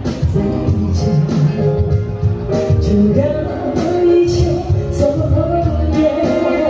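Live band music with a woman singing lead into a microphone over a steady beat and bass line.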